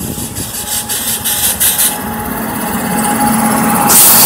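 Indian Railways WAP-7 electric locomotive passing close by at speed, the rumble of wheels on rail growing louder, with a steady hum from the locomotive starting about two seconds in. A loud rush of noise comes near the end as the locomotive goes past and its coaches follow.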